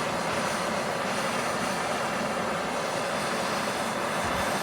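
Plumber's gas torch burning with a steady roaring hiss, its flame heating a fluxed copper pipe joint for soldering.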